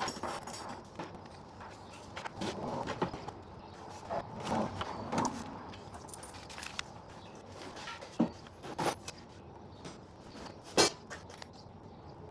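Tools and shop items being handled and set down on a workbench: irregular clinks, knocks and rustling, with one sharper knock late on.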